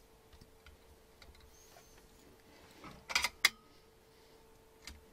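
Brass hose fittings being handled and screwed together at a ball valve: small metallic clicks and scrapes, with a cluster of sharper clicks about three seconds in.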